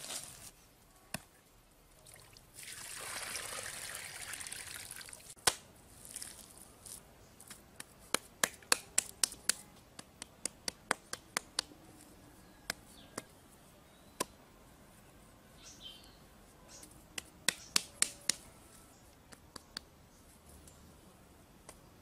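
Loose dry soil pouring out of a woven basket with a hiss. Then come irregular sharp clacks of flat stone slabs knocking against each other as they are set in place, in quick runs.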